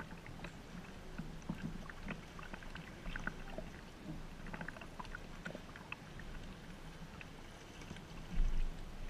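Sea kayak paddling on calm water: light splashes and drips from paddle strokes and water lapping at the hull, heard as many small scattered drips. A brief low rumble near the end.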